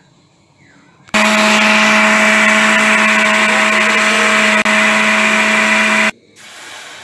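Countertop blender motor switched on, running steadily at speed with a constant hum as it purées boiled tomatillos and chiles into salsa, then switched off after about five seconds.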